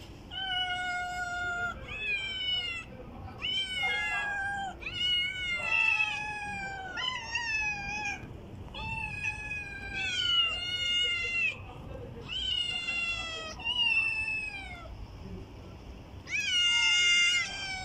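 Several stray cats meowing repeatedly at feeding time, calls coming one after another and sometimes over each other. The meows are drawn out and mostly fall in pitch, with a louder one near the end.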